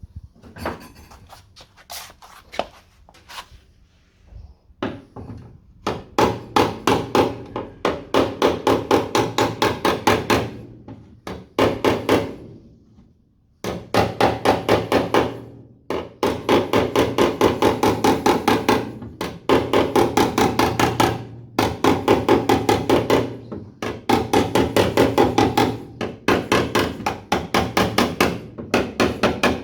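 Hammer tapping out a dent in the steel rear quarter panel of a Mk2 Ford Escort, in quick runs of even blows, several a second, with short pauses between runs. The first few seconds hold only a few scattered knocks.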